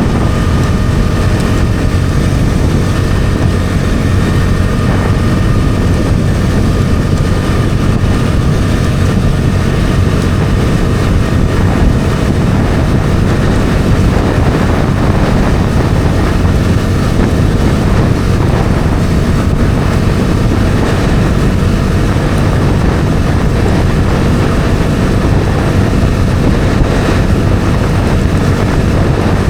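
Bajaj Dominar 400's single-cylinder engine running at a steady cruise on the road, its note holding level without revving up or down.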